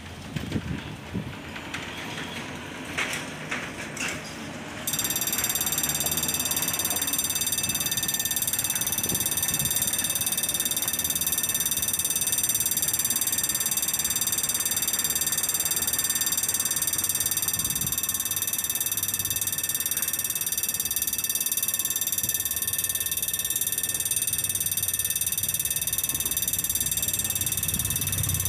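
Level-crossing warning bell at an automatic Saxby barrier starts ringing about five seconds in and rings steadily, warning of an approaching train while the barrier arm lowers. Street traffic is heard before it starts.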